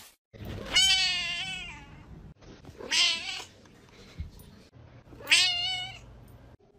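A cat meowing loudly: three long, wavering meows, about two seconds apart.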